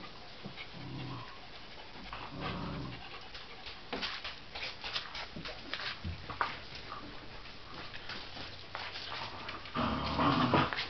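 A group of dogs playing: short low growly sounds, scrabbling and clicking on a hard terrazzo floor, and one louder dog vocalisation about a second long near the end.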